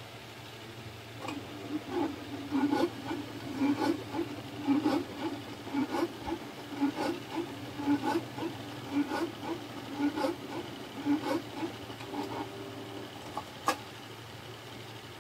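Canon G-series inkjet printer printing a page. The print-head carriage and paper-feed mechanism whir in short, repeated passes about twice a second, starting about a second in and stopping a couple of seconds before the end, followed by a sharp click.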